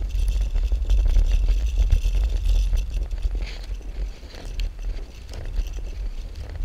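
Bicycle rolling on a gravel path: a heavy low rumble of wind buffeting the microphone, with the tyres crunching over grit and the bike rattling and clicking.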